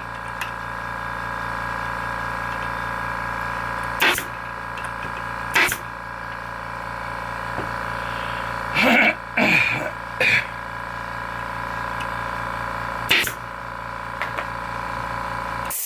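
Harbor Freight quiet-type air compressor running with a steady hum, then shutting off suddenly near the end as it reaches pressure. Several sharp snaps of a pneumatic stapler firing staples over it.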